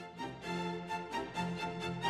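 Instrumental background music with strings, playing a melody of changing notes over a pulsing low note.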